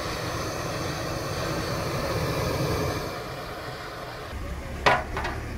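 High-pressure LPG burner of a single-burner iron stove, just lit and burning with a steady rushing roar. A sharp metallic clank comes near the end.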